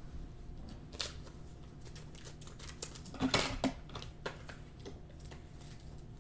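Faint clicks and rustles of trading cards being handled, with a short cluster of louder clicks a little past the middle.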